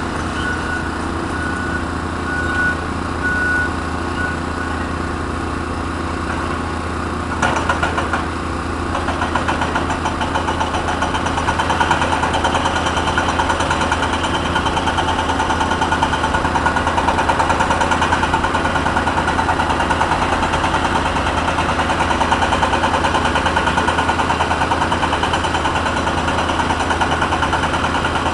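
Cat 320 excavator's diesel engine running steadily. About seven seconds in, its hydraulic breaker hammer starts up, a rapid, steady hammering over the engine that grows a little louder and keeps going.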